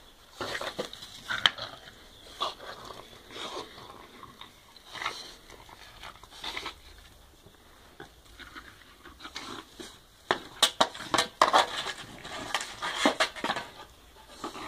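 French bulldog chewing and tugging at a bristle broom head, the bristles crunching and crackling in irregular clusters that come thickest a little after two-thirds of the way through.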